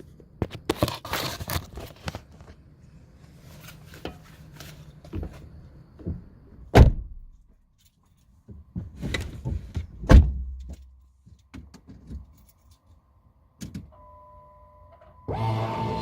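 Rattling and clicking, with two heavy thunks, then a steady electronic tone. Near the end a louder mechanical noise starts: the 2009 Dodge Charger SXT's starter beginning to crank an engine that cranks but will not start.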